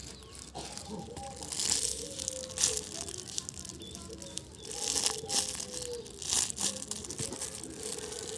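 Plastic crinkling and crunching as a squishy toy is squeezed and kneaded in the hands, an irregular run of crackles.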